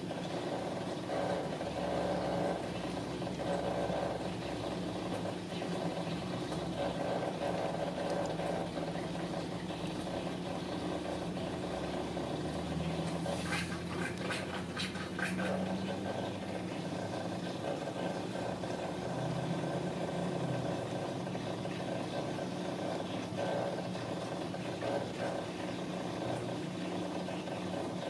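Ragdoll cat purring steadily, a continuous low rumbling purr, with a few soft clicks or rustles about halfway through.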